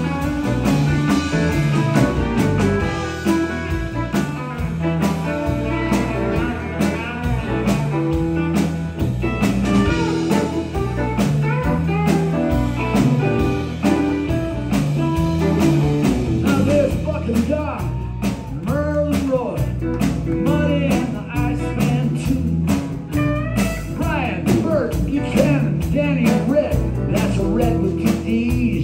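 Live honky-tonk band playing an instrumental stretch: Telecaster electric guitars over electric bass and drums with a steady beat. The lead guitar plays many bent notes, most of all in the second half.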